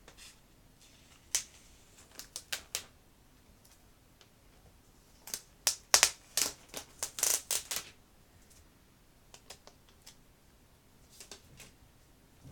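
Packaging being handled as a laptop is unwrapped from its box: short bursts of crinkling and clicking in irregular clusters. The busiest run is from about five to eight seconds in, with a few lighter ones near the end.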